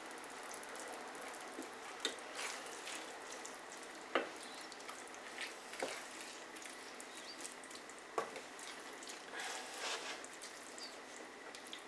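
Faint steady sizzling of couscous, vegetables and chicken in broth in a stainless steel pan, stirred with a wooden spatula that knocks sharply against the pan a few times.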